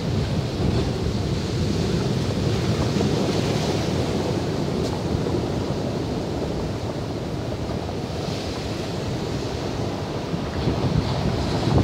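Heavy North Sea surf breaking and washing up the shore, a continuous rushing that swells into a louder hiss several times as waves break. Wind rumbles on the microphone underneath.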